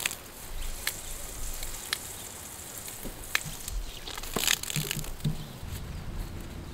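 Garden hose spraying water onto a grass pen, a faint steady hiss broken by scattered sharp clicks and crunches, the loudest about four and a half seconds in.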